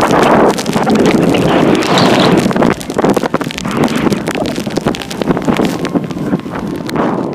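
Loud wind buffeting and handling rumble on the microphone of a camera carried on a moving horse, with the horse's hoofbeats as short knocks mixed in.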